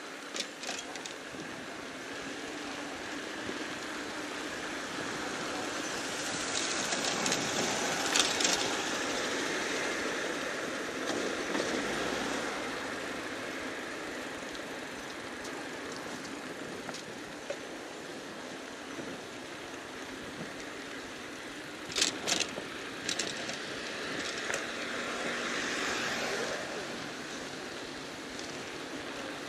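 City street traffic: steady road noise with vehicles going by, one pass swelling up and fading away about 6 to 12 seconds in. A few short sharp clicks sound a little after 22 seconds in.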